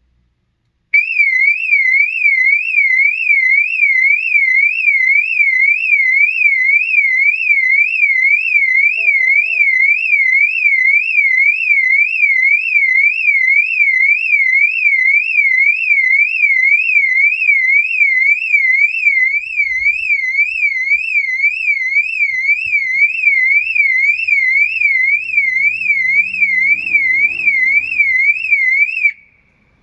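Loud electronic siren tone warbling rapidly up and down, about two sweeps a second. It starts about a second in and cuts off just before the end.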